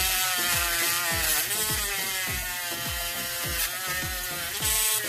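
A 12V DC mini rotary grinder with a sandpaper ring runs steadily with a whine while it sands rust off steel pliers. A regular low thump comes about twice a second underneath.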